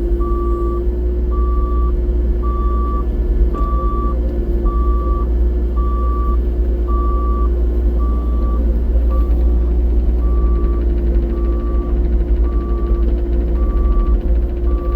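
Compact excavator's diesel engine running steadily while its travel alarm beeps about once a second, a steady high beep repeating throughout.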